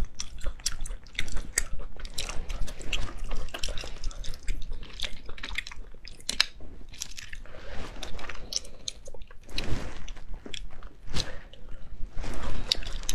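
Close-up wet chewing and sucking of spicy cooked sea snails, with many small irregular clicks from the shells and toothpick being handled.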